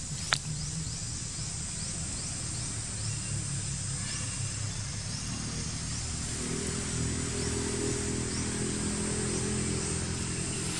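Outdoor background noise: a steady high hiss with small repeated ticks and a sharp click just after the start. A low, steady hum grows stronger from about halfway through.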